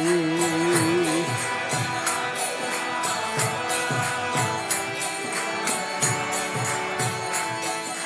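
Kirtan music between sung lines: hand drum strokes and small ringing hand cymbals keep a steady beat under held organ-like chords. The end of a sung line is held for about the first second.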